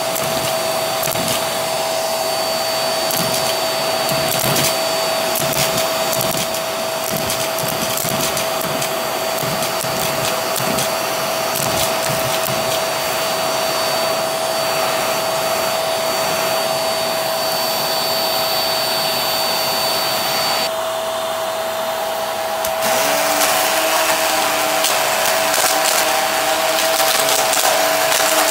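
Hart vacuum cleaner running with a steady whine while small wooden buttons click and clatter up its nozzle. About 21 seconds in the clicking stops. Near 23 seconds the vacuum comes back louder as its floor head works over the carpet.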